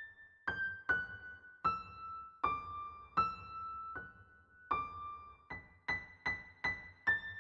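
Background music: a slow melody of single high piano-like keyboard notes, each struck and left to ring before the next.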